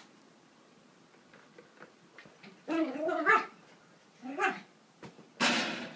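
Yorkshire terrier barking a few times: a pitched, wavering bark about three seconds in, a short rising yip about a second later, and a harsh, noisy bark near the end.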